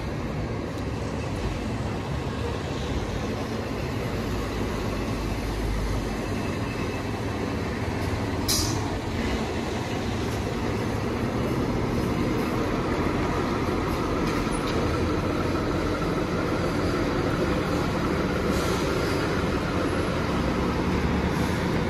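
Fire engine's diesel engine running as the truck pulls out of the station and drives off, slowly growing louder, with one short sharp air-brake hiss about eight and a half seconds in.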